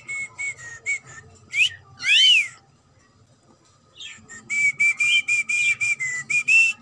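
Cockatiel whistling: a quick run of short repeated notes, two arching whistles about two seconds in, then a pause and another fast run of repeated notes.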